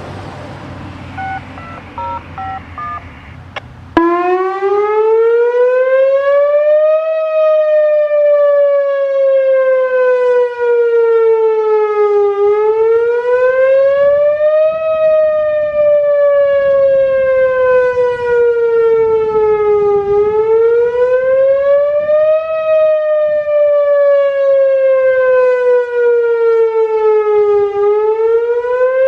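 A short run of beeping activation tones, then about four seconds in a Whelen Omni-Alert OA-2 two-cell electronic outdoor warning siren starts abruptly on its wail tone. The pitch glides slowly up for about three seconds and down for about five, over and over, loud.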